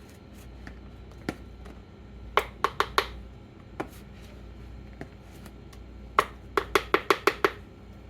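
Sharp taps of a utensil against a bowl while whipped cream is scraped into it: four quick taps near the middle and a faster run of about seven near the end.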